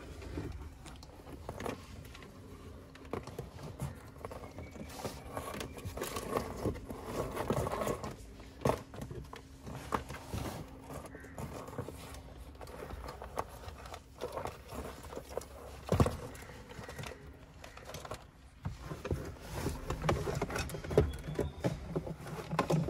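Scattered clicks, scrapes and rustling of hands working wiring and plastic trim under a car dashboard, with one sharper knock about 16 seconds in.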